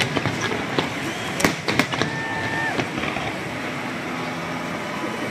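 Aerial fireworks bursting: a quick run of sharp bangs and crackles in the first two seconds over a steady noisy background. About two seconds in, a short steady whistle lasts under a second.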